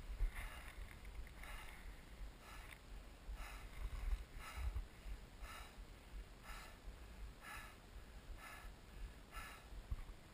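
A person breathing hard and fast close to the microphone, about one breath a second, winded after skiing. A low wind rumble on the microphone runs underneath.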